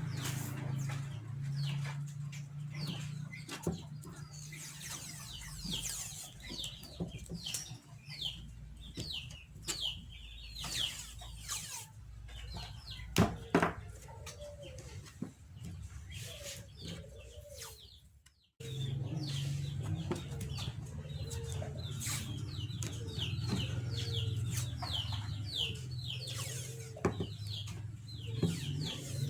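Many birds chirping in quick, short falling notes, with occasional chicken clucks and a steady low hum underneath.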